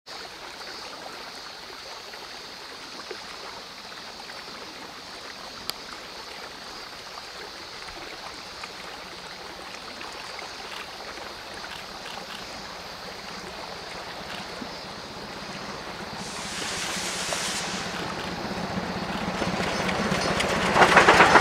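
JNR Class C12 steam tank locomotive approaching with its passenger coaches, its sound rising steadily in the last few seconds and loudest at the end. Before that there is only a steady faint hiss, with a short burst of hiss about three-quarters of the way through.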